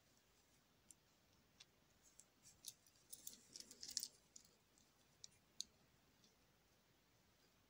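Faint clicks and rubbing from a 1974 Omega Equinoxe's reversible steel case and bracelet as the case is swivelled over in its frame, from the analogue face to the digital one, under cotton-gloved fingers. Scattered single clicks give way to a busier run of clicks and rustle about three to four seconds in, then two more lone clicks.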